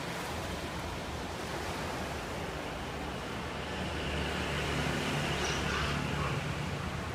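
Steady outdoor rushing noise with a low hum that grows a little louder about four seconds in.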